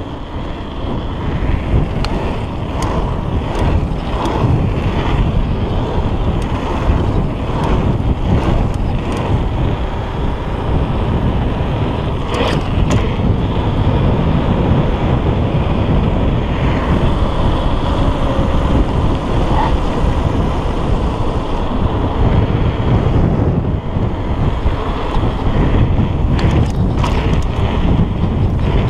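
Wind buffeting the microphone of an action camera on a mountain bike rolling fast down a paved road, over a steady rumble of tyres and bike, with a few brief clicks and rattles.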